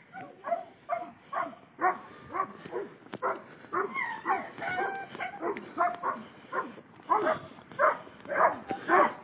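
Hunting dog barking repeatedly, about two barks a second, with a longer wavering cry around the middle.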